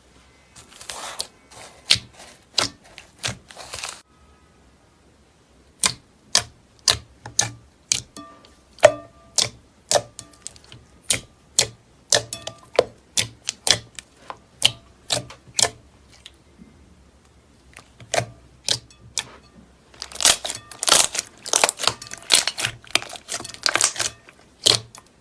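Slime being pressed and poked, making sharp clicking pops in quick irregular runs of about two to three a second, broken by two short pauses.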